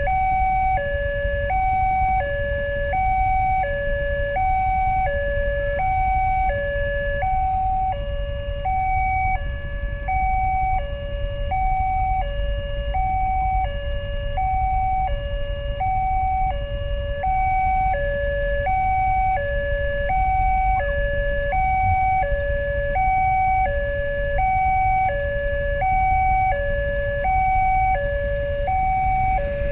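Railway level-crossing warning alarm sounding from the horn loudspeaker on the crossing mast: an electronic two-tone signal, high and low, alternating steadily without a break, warning that a train is approaching. A low rumble of waiting motorcycle engines runs underneath.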